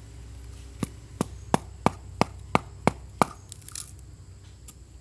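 Metal knife blade chopping at a bamboo tube of cooked rice to split it open: eight sharp, evenly spaced strikes about three a second, followed shortly by a brief scrape.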